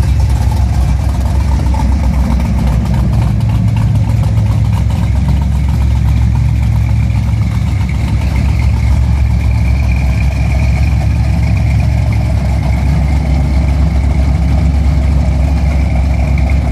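Big-block Chevrolet V8 idling steadily and loudly.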